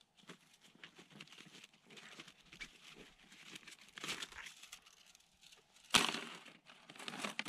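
Rustling and crinkling of fishing tackle being handled by hand, with many small irregular clicks and one sharp knock about six seconds in.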